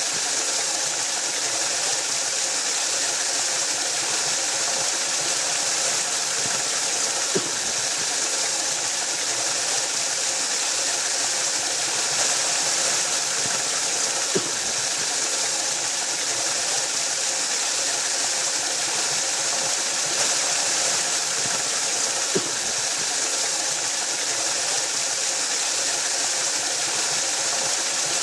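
Waterfall: a steady, even hissing rush of falling water, with a brief faint click about every seven or eight seconds.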